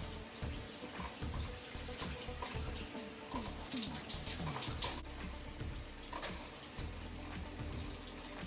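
Water running and splashing, with a louder hiss of spray about three and a half seconds in that stops abruptly a second and a half later.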